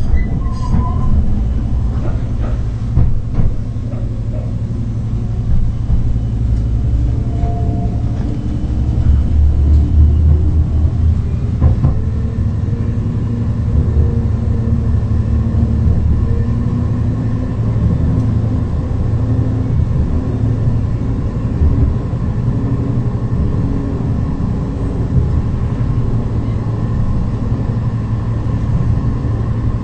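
Heard from inside a modern tram in motion: a steady, low-pitched running noise of wheels on the rails. Faint tones slowly drift in pitch through it, and a few sharp knocks come about three seconds in and again near twelve seconds.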